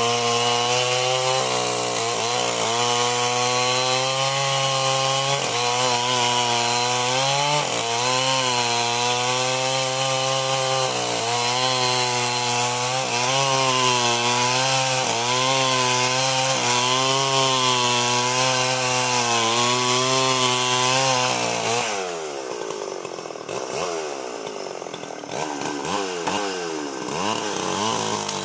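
Old two-stroke chainsaw running at high revs while cutting albasia wood, its pitch dipping and recovering every couple of seconds as the chain bites. About 21 seconds in it drops to a lower, wavering speed, then revs up again near the end.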